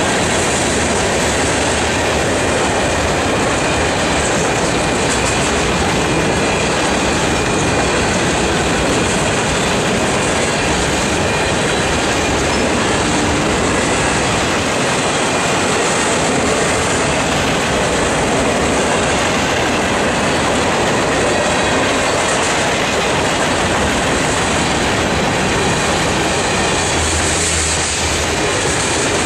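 Freight train cars rolling past close by: a steady, loud rumble and clatter of steel wheels on the rails, with a thin wheel squeal over it.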